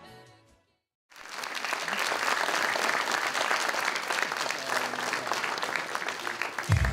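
The tail of the music dies away, and after a brief gap an audience breaks into steady applause. Near the end a new piece of backing music starts in with a deep bass.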